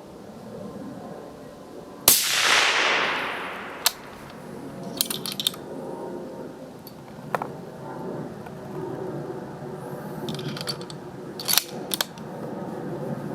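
A single shot from a suppressed 6.5x55 Carl Gustaf rifle with a Reflex suppressor, about two seconds in, with a long fading tail that sinks in pitch. Several sharp clicks and knocks follow over the next ten seconds.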